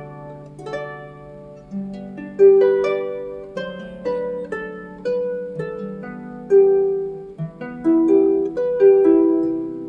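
Background music: a melody of plucked string notes, each starting sharply and then ringing and fading away.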